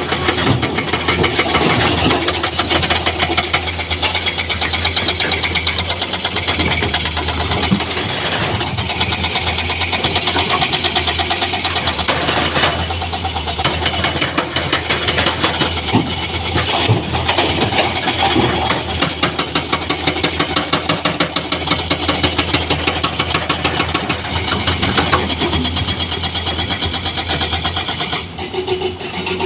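Heavy diesel machinery running steadily, with scattered knocks and clatter, as a dump truck is loaded with soil and stones.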